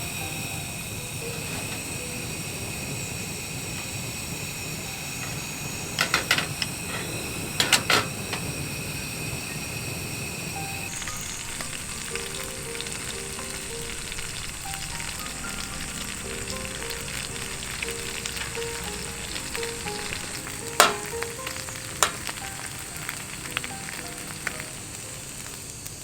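Food frying in a pan: a steady sizzle, with a few sharp clacks of a utensil against the pan, two in the first third and two more past the middle.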